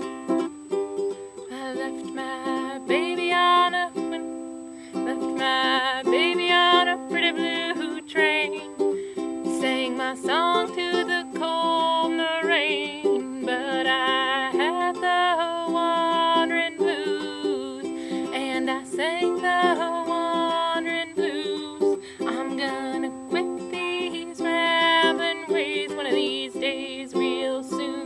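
Ukulele strummed steadily in rhythm, with a wordless melody wavering and gliding between notes over the chords.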